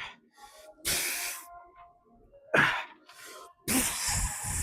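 A lifter's forceful exhales through a hard set of reps, three hissing breaths, the last one longest, with faint music playing underneath.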